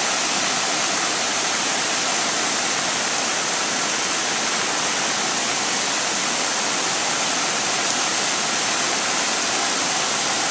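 A river in flood rushing steadily past, a constant loud wash of turbulent whitewater.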